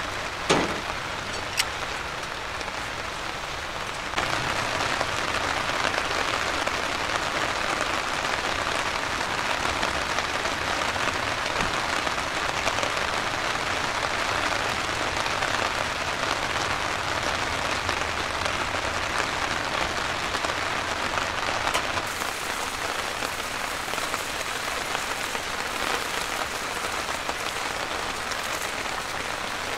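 Heavy downpour: a steady hiss of rain on surfaces, with two sharp clicks in the first two seconds. It gets louder about four seconds in and eases a little near the end.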